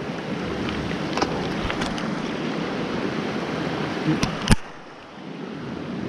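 Mountain stream rushing steadily over rocks, with a few sharp clicks, the loudest about four and a half seconds in; the rushing dips for a moment right after it, then returns.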